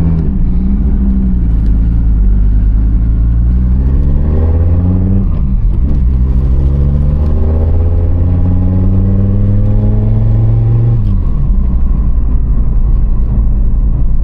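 Fiat Marea's tuned 2.4 five-cylinder engine pulling away under light throttle: the note rises briefly, dips as it shifts, then climbs steadily for several seconds before dropping back about eleven seconds in to a low steady rumble.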